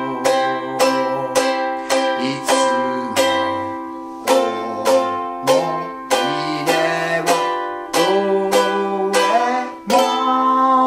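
A small ukulele strummed at about two strums a second through C, F, G7, Em7 and Am chords, with a man singing the melody along with it.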